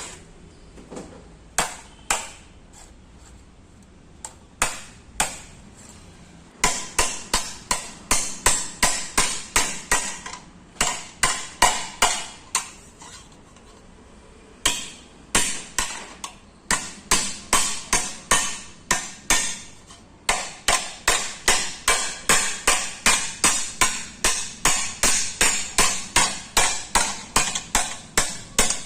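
Hand hammer beating a dent out of the sheet-metal body of a Maruti 800, each blow ringing. A few scattered blows at first, then steady hammering at about two to three blows a second, with a short pause midway.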